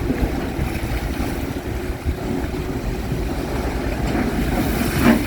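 Strong wind buffeting the phone microphone over choppy, storm-driven water, a steady rumble, with a short louder burst near the end.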